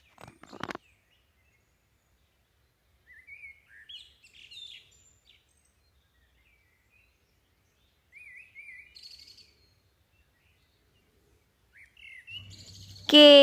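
Small birds chirping in two brief bouts of short, high twitters, about three seconds in and again about eight seconds in, with near silence between.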